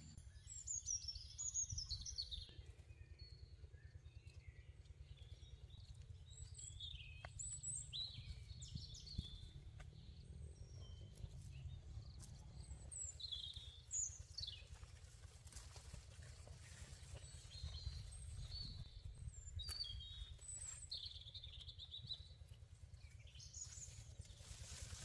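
Birds chirping, short high calls and quick falling whistles scattered throughout, over a faint low steady rumble.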